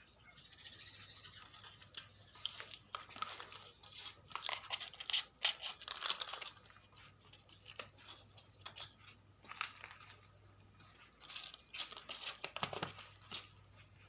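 Rustling and scratching in irregular bursts with scattered clicks, loudest about five to six seconds in and again near the end.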